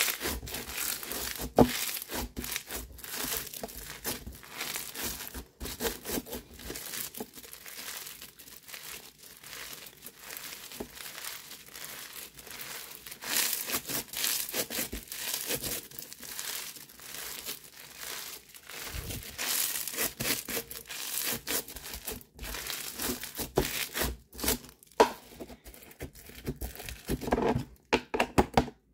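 Bingsu bead slime squeezed, pressed and folded by hand: dense crunching and crackling from the beads, coming in louder stretches as the slime is worked.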